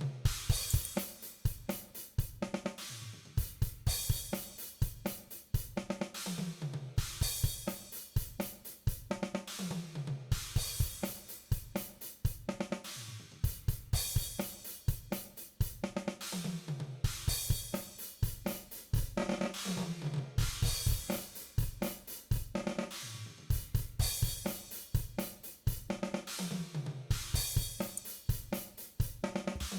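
Virtual drum kit (DrumGizmo samples) playing a looped groove of kick, snare, hi-hat and cymbals, with runs of falling-pitch tom hits recurring every few seconds.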